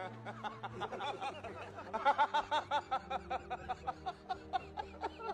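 Men laughing hard: a lighter chuckle at first, then from about two seconds in a long run of rapid, evenly repeated ha-ha laughs.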